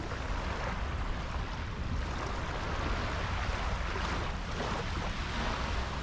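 Small, gentle sea waves washing up a sandy beach, a steady hiss of surf that swells briefly a couple of seconds in.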